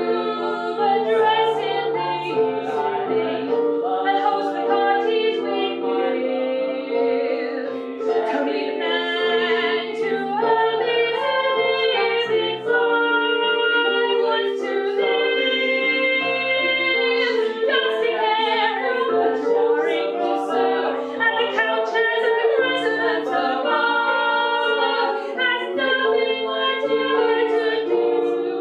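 A man and two women singing a musical-theatre number together in harmony, with sustained notes that change in steps and a lower line moving beneath.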